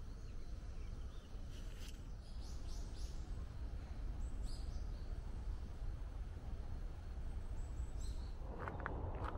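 Outdoor garden ambience: a steady low background rumble, with a few short, high bird chirps in the first half. Near the end, footsteps start crunching on a gravel path.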